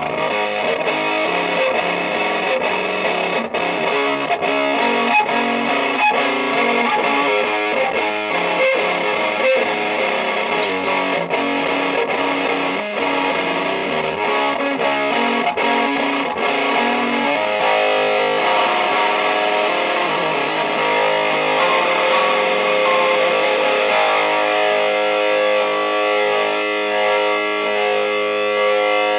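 Electric guitar with distortion, tuned down a half step, playing a continuous riff of two-note interval chords. The playing is choppier at first and settles into a steadier repeating pattern about halfway through.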